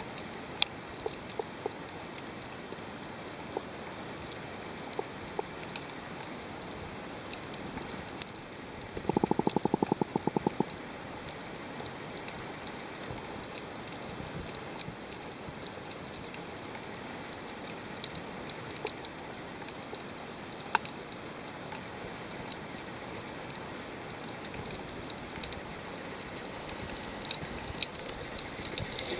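Underwater reef ambience recorded from within the water: a steady hiss full of irregular sharp crackling clicks, the sound of snapping shrimp. About nine seconds in, a rapid buzzing pulse train lasts about a second and a half.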